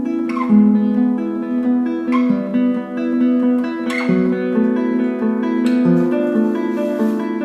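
Background acoustic guitar music: plucked notes and chords in a flowing melody, with a firmer pluck about every two seconds.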